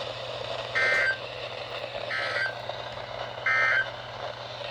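Emergency Alert System end-of-message signal: three short bursts of two-tone digital data, evenly spaced a little over a second apart, over a steady background hiss and low hum.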